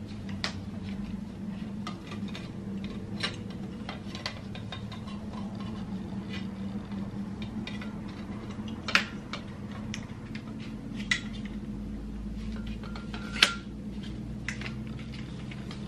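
Scattered clicks and knocks from the telescoping tripod stand of a work light being handled and adjusted, its legs, column and locking parts clacking together, with three sharper clacks about nine, eleven and thirteen seconds in.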